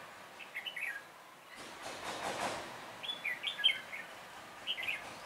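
Red-whiskered bulbuls singing short, quick warbling phrases: three bursts, about half a second in, around three seconds in (the loudest), and near the end. A brief noisy swish comes between them, about two seconds in.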